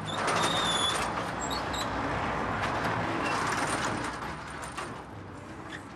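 Street traffic: a road vehicle passing close by, its noise swelling in quickly and fading away over about five seconds.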